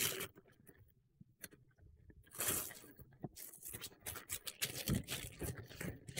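A paper mailer rustling and crunching as it is pulled open and a boxed item is drawn out of it, in irregular bursts, the loudest about two and a half seconds in.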